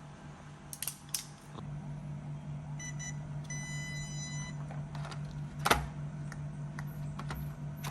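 Electronic start-up beeps from the Arrma Mojave Grom RC truck's speed controller as it is switched on: a short beep about three seconds in, then a longer one about a second long. Light clicks of handling come around it, with one sharp click near six seconds, over a steady low hum.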